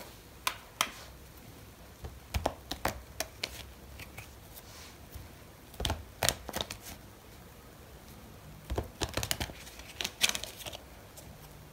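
A deck of tarot cards shuffled by hand: short runs of card rustling and clicks, separated by quiet gaps.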